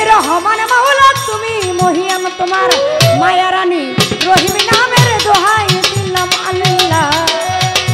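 Violin playing an ornamented baul folk melody, with hand drums and shaken percussion keeping a quick, steady rhythm.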